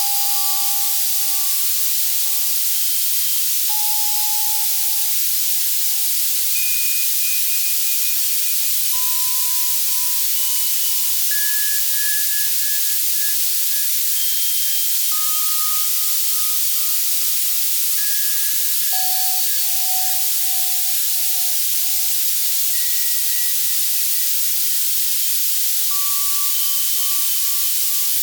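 Steady white-noise hiss, strongest in the treble, synthesized on an Access Virus C, with soft synthesized bell tones entering one at a time every second or two at scattered high and middle pitches, each fading over a couple of seconds: a tinnitus-masking sound.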